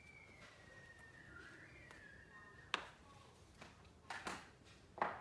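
A faint thin whistle-like tone drifting slowly down in pitch, then a few sharp clicks and knocks, the loudest about halfway through and just before the end.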